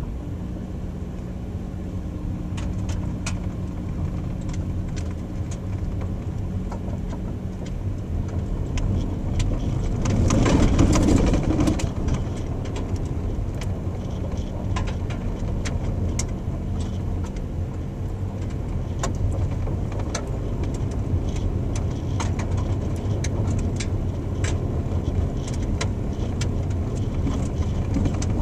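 Car driving along a dirt driveway, heard from inside the cabin: a steady engine and tyre rumble with scattered sharp clicks and ticks. About ten seconds in, a louder rush of rumbling noise lasts a couple of seconds.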